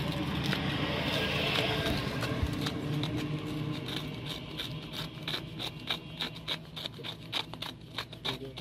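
Small knife scraping and shaving the rind of a bel (wood apple) in quick, short strokes. The scrapes grow sharper and more distinct about halfway through, over a steady background noise that dies down.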